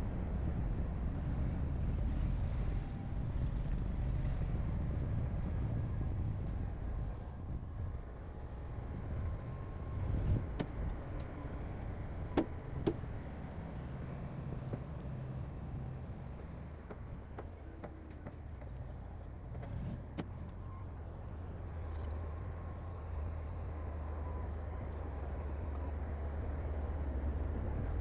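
Heavy diesel earthmoving machinery running steadily with a low rumble, with a few sharp metallic clanks in the middle.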